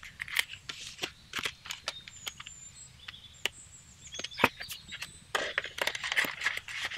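Paper banknotes being handled and folded into a small paper envelope: light rustling and crinkling with many small sharp clicks and taps. The rustling grows denser about five seconds in.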